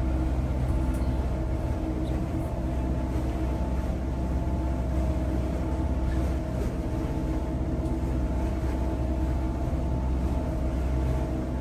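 Cruise boat's engines running steadily: an even low drone with a few constant higher tones over it.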